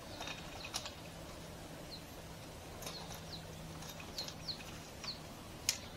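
Bird chirping outdoors: a series of short, high chirps that each fall in pitch, coming several to a second around the middle. Underneath there are a few light clicks and a faint steady low hum.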